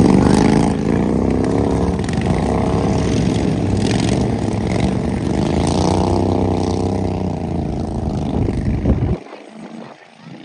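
Racing lawn mower engines running hard, their pitch rising and falling as they speed up and slow down. The sound drops off abruptly about nine seconds in.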